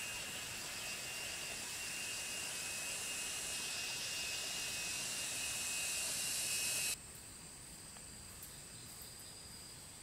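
Steady high-pitched chorus of forest insects buzzing and shrilling, with a couple of constant whining tones. About seven seconds in it drops suddenly to a quieter insect chorus.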